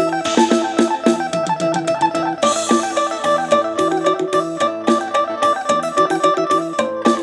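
Phin, the Thai Isan plucked lute, played solo: a fast run of picked notes over a steadily sounding drone, test-playing the instrument to hear how it sounds.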